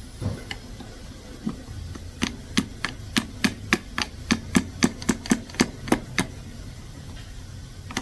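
Hammer blows on a steering intermediate shaft, driving its collapsible section home until it locks. After a couple of isolated knocks comes a steady run of about fifteen sharp strikes, roughly three a second.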